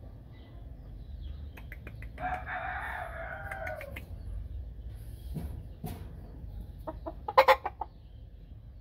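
Gamefowl rooster crowing once, a crow of under two seconds that drops in pitch at its end. Near the end comes a short, loud burst of rapid clucks.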